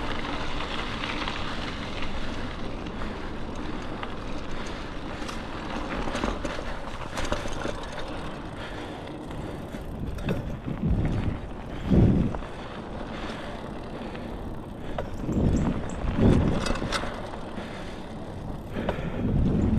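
A bicycle being ridden along a dirt trail: a steady rush of tyre and wind noise with scattered small rattles and clicks from the bike. Several heavier low rumbles come in the second half.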